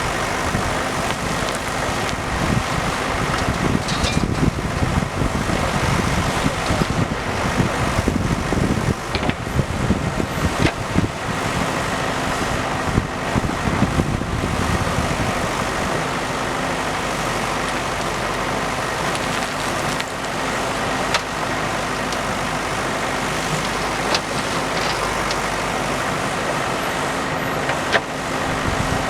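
JCB backhoe loader's diesel engine running as it loads sand. It goes loud and uneven through the first half, then runs steadier.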